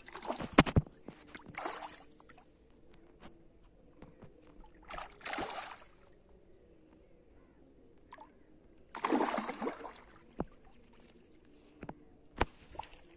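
A hooked carp thrashing at the surface, splashing in short bursts: a loud one at the start, others about five seconds and nine seconds in, with a sharp knock near the end.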